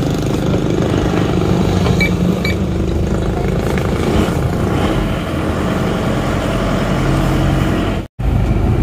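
Freshly rebuilt Isuzu Panther diesel engine running steadily, heard from inside the cabin on a slow road test. Two short high beeps sound about two seconds in.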